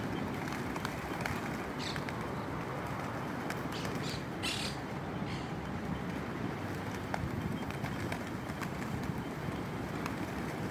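Birds gathering for thrown seed, with a few short calls and wing flutters over a steady rush of wind noise.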